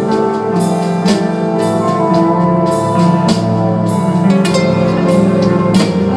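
A live band plays an instrumental passage of a pop song, with guitar over sustained chords and drums keeping a steady beat of about two strokes a second.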